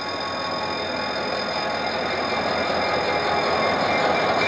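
A level-crossing warning alarm sounds steadily while a GM GT-22 diesel-electric locomotive draws up to the crossing. The engine and wheel noise grow steadily louder as it arrives near the end.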